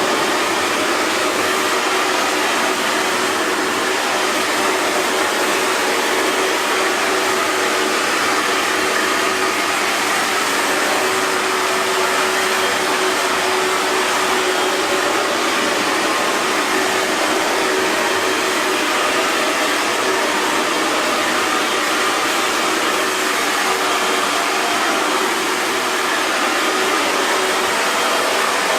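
Hair dryer running continuously: a steady airflow rush with a constant motor hum underneath, unchanging throughout.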